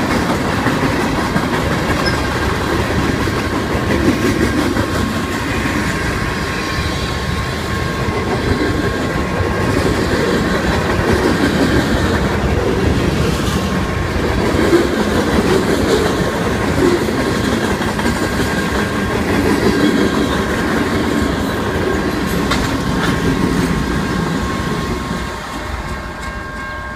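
Freight cars of a BNSF manifest train rolling past close by: steel wheels clattering over the rails, with occasional sharp knocks and a steady high ringing tone underneath. The sound drops in loudness near the end.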